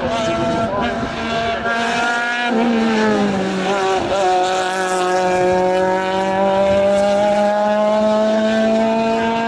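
Race car engine driving hard up a hill-climb course. Its revs fall from about two and a half seconds in as it slows, then climb slowly again under throttle.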